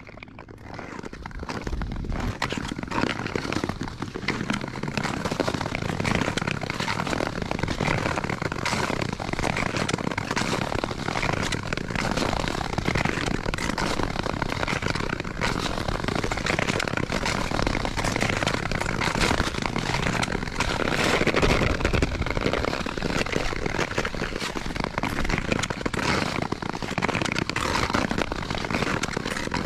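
Nordic skate blades gliding over rough natural lake ice: a dense, continuous crackling scrape that fades in over the first two seconds.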